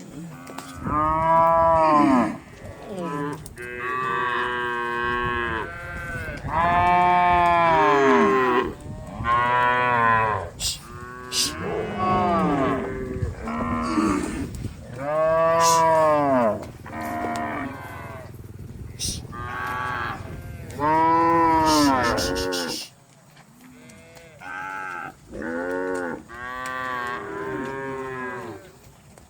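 Cattle mooing one after another, several overlapping, long calls that rise and fall in pitch. The calls grow fainter and sparser near the end.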